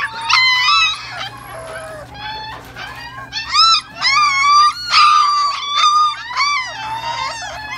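Four-week-old puppies whining and yelping, a quick string of high, arching cries one after another, one drawn out for about a second midway.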